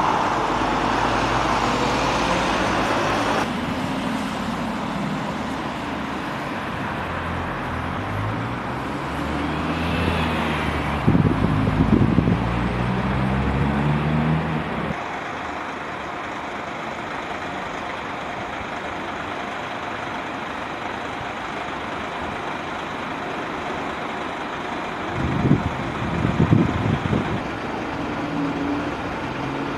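Road traffic on a town street: a steady hum of cars. Two louder vehicles pass, their engine pitch rising and falling, about ten to fourteen seconds in and again about twenty-five seconds in.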